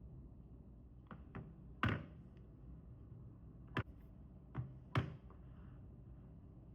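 Phone cases being handled and set down on a hard surface: six short taps and knocks, the loudest about two seconds in and another near five seconds.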